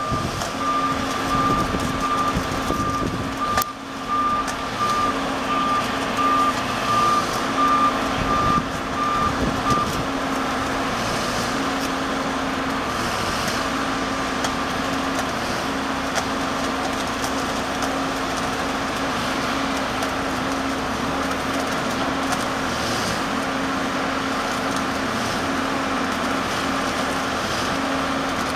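Machinery of a rail flash-butt welding operation running steadily. A high warning beeper sounds about one and a half times a second and stops about ten seconds in. A lower tone pulses on and off throughout, and the level surges irregularly during the first ten seconds.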